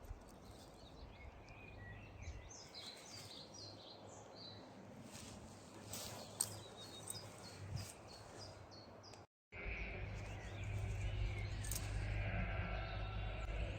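Small songbirds singing in woodland, with short high chirps and trills. After a brief break, a louder steady low rumble takes over, with more calls above it.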